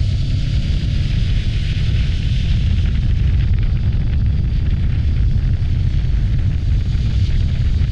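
Heavy wind buffeting on the microphone of a moving motorcycle: a steady, loud low rumble with a hiss above it, covering most of the engine and road noise.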